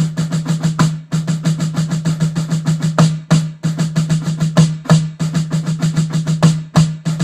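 Snare drum played in a fast, continuous roll with louder accented strokes standing out every second or so, the drum's ringing tone sounding under the strokes.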